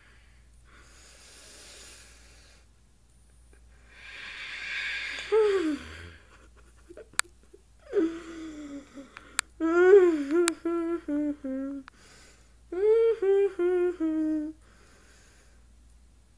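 A person humming and moaning through the nose with the mouth held shut on a mouthful of hot sauce, straining against the burn. A heavy, noisy breath comes about four seconds in, then two runs of short strained hums that waver up and down in pitch.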